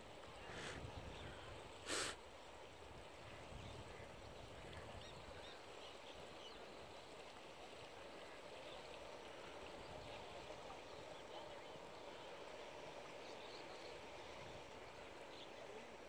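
Faint, steady rush of a muddy stream in flood, with two short knocks about half a second and two seconds in, the second the loudest.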